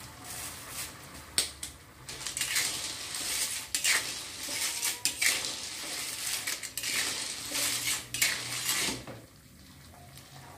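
Metal spatula scraping and clinking against a metal wok while freshwater snails in their shells are stirred in simmering sauce, a run of irregular scrapes and knocks that stops about nine seconds in.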